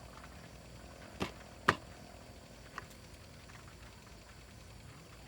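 Two sharp knocks about half a second apart, the second louder, then a fainter knock about a second later, over a steady low hum.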